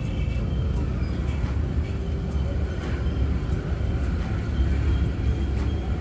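Steady road traffic noise heard from a moving vehicle: low engine and road rumble, with motorcycles running close by.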